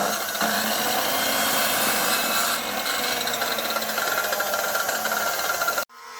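Power tool abrading material: a steady rasping with a faint hum under it, cutting off suddenly near the end.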